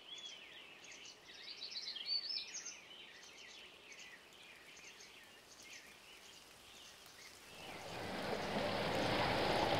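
Birds chirping with short repeated whistled calls over faint background noise. About three-quarters of the way in, a steady wash of rain and water noise from a flooded street swells up and drowns them out.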